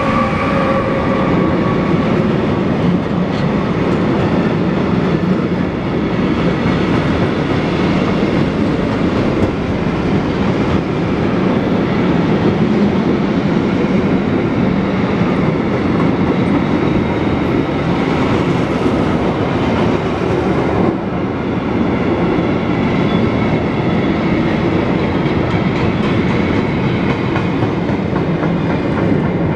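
Freight train of covered sliding-wall wagons rolling past, a steady loud rumble of steel wheels on rail with repeated clacking over the rail joints. A whine from the electric locomotive that has just passed dies away about two seconds in.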